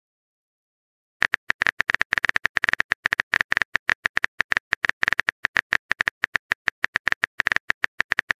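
Phone-keyboard typing sound effect: quick short clicks, one per keystroke, in an irregular rapid run starting after about a second of silence.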